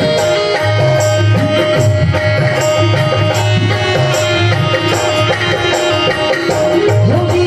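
Instrumental interlude of a live Rajasthani bhajan: a steady tabla-type drum beat under a held, sustained melody line.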